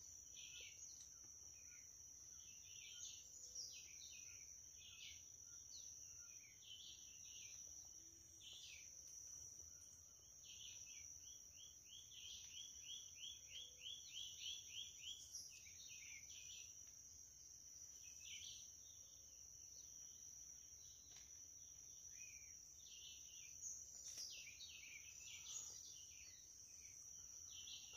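Faint countryside ambience: a steady high insect trill, with scattered short bird chirps and a quick run of evenly spaced chirps near the middle.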